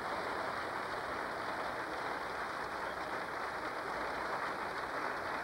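Audience applauding: many hands clapping in a steady, dense stream.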